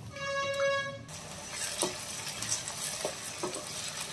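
A steady horn-like tone sounds once for about a second at the start and stops abruptly. Then onions and ginger-garlic paste sizzle in hot oil while a spatula stirs them, scraping against the pan every second or so; the paste is being fried until its raw smell is gone.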